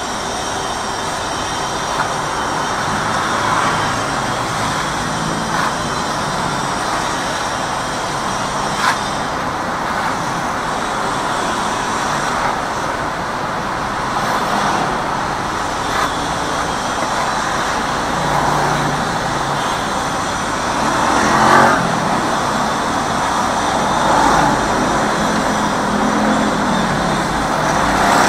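Steady road traffic at a stopped intersection: many motorcycles and cars idling together, with one louder swell about three-quarters of the way through and a few small clicks.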